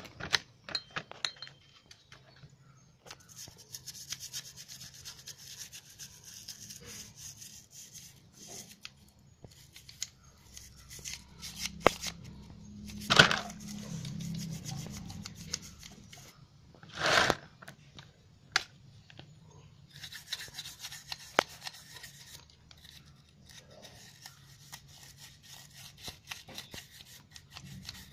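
A stiff plastic brush scrubbing a motorcycle carburettor body clean of dust, in stretches of scratchy brushing with small clicks as the part is handled. Two louder knocks stand out about halfway through and a few seconds later.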